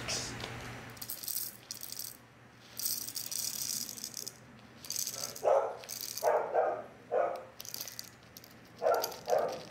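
Small gravel poured from a plastic bag into a small clear plastic cup: stones rattling against the plastic along with rustling of the bag, the rattling coming in several short spurts in the second half.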